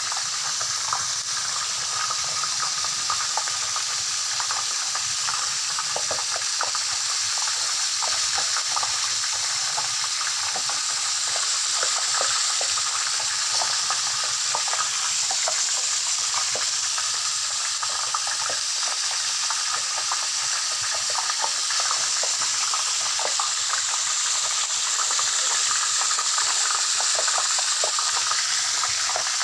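Tofu deep-frying in hot oil: a steady sizzle with many small crackling pops.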